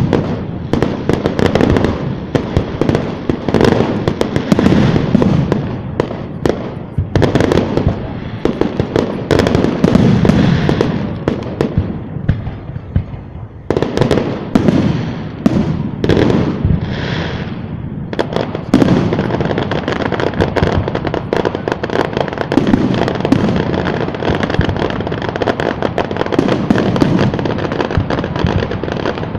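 Fireworks display: a dense, continuous barrage of bursting shells and crackles following one another rapidly, with a brief lull about thirteen seconds in.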